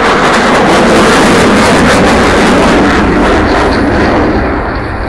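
Eurofighter Typhoon's twin Eurojet EJ200 jet engines running loud in a display pass, fading slightly near the end.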